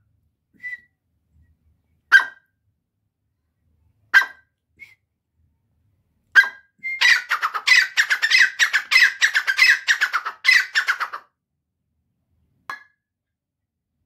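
Grey francolin calling. Sharp single call notes come about every two seconds, then about seven seconds in a fast run of repeated notes lasts about four seconds.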